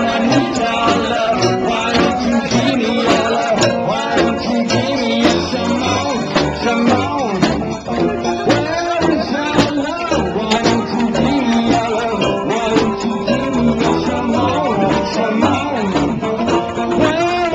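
A live street band playing a tune: sousaphone bass line with snare drum and cymbal, and a saxophone over the top.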